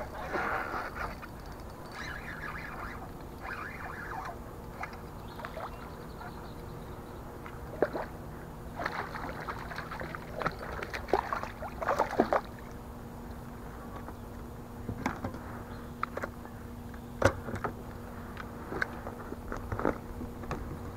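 Hooked largemouth bass thrashing and splashing at the water's surface beside a kayak, in bursts of sharp splashes that are thickest about halfway through, with scattered clicks and knocks from the boat and tackle.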